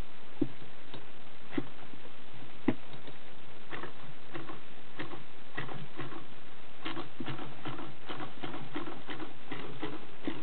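Light mechanical clicks and taps from an antique Frister & Rossmann sewing machine being handled, scattered at first and coming several a second in the second half, over a steady hiss.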